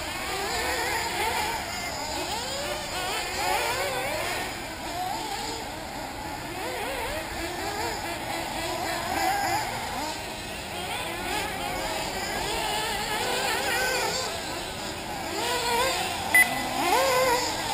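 Several 1/8-scale nitro RC buggies' small two-stroke glow engines buzzing around the track, their overlapping pitches rising and falling as they rev and back off. A short electronic beep sounds about 16 seconds in.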